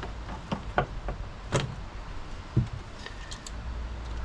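Sharp plastic clicks and knocks, four distinct ones and a few faint ticks, as the covers are pried off a car's rear grab handle and the handle is worked loose.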